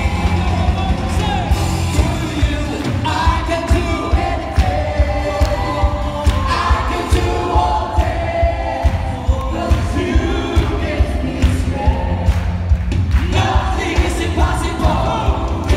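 Live praise and worship band played loud through a PA: singing over a steady drum beat and heavy bass.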